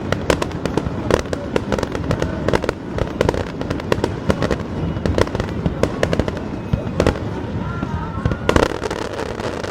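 Fireworks display bursting in rapid succession: a continuous run of sharp bangs and crackles, several a second, with a few louder bangs about a second in, around seven seconds and near the end. Crowd voices are heard underneath.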